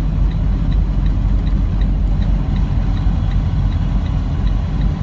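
Steady low rumble of a semi truck driving on tire chains, heard inside the cab, with a faint regular tick about three times a second.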